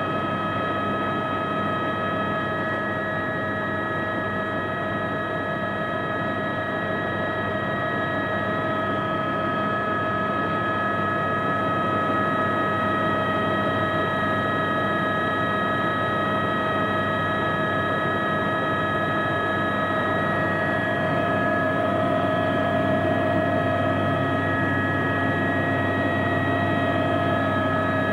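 Cabin noise of an Aérospatiale AS350B Squirrel helicopter in flight: a steady high whine from the turbine engine and transmission over a constant rush of rotor and airflow, growing slightly louder about halfway through.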